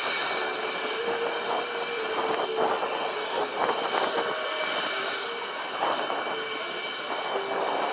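Jet engine running steadily, a rushing noise with a constant high whine.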